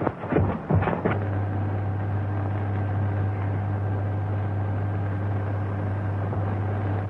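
A few scuffling knocks, then from about a second in a steady low electric hum: the sci-fi machinery effect of the underground city's elevator running.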